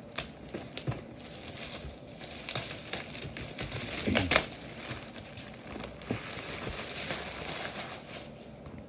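Packaging of a trading-card case being handled and opened by hand: rustling wrapping with scattered sharp clicks and knocks, loudest about four seconds in.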